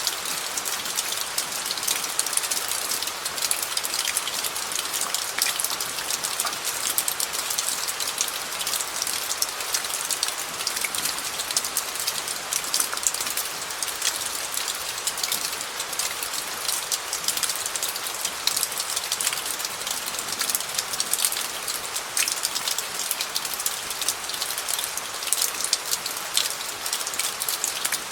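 Steady rain falling on a gravel bed: a continuous patter of many individual drops ticking on the stones, evenly sustained.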